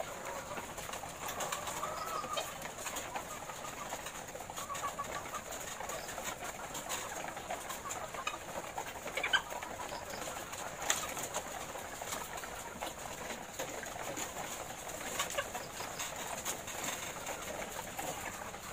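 A flock of caged laying hens clucking and calling in a continuous chorus, with a few sharp clicks and knocks, the loudest about nine and eleven seconds in.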